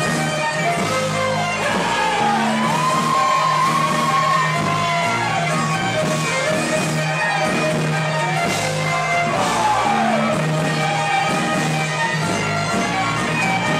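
Celtic folk-rock song with strummed guitar and loud, shouted singing.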